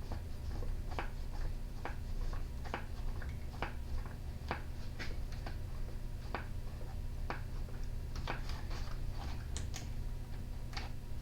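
Scattered light clicks and taps at an uneven pace, about one every half second to a second, over a steady low hum.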